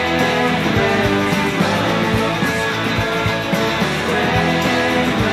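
Guitar-band rock music from a demo recording: an instrumental passage of guitars over a steady beat.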